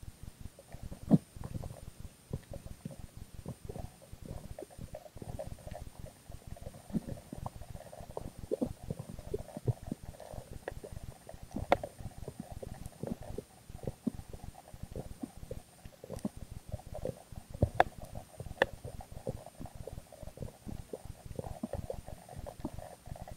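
Underwater sound picked up by a camera in its waterproof housing: a continuous muffled rumbling and gurgling, with scattered sharp clicks and knocks, the loudest about a second in.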